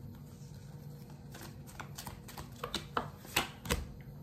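A tarot deck being shuffled by hand: a run of soft card snaps and slaps that comes thicker about a second and a half in, with two sharper slaps near the end, the last one with a dull thud.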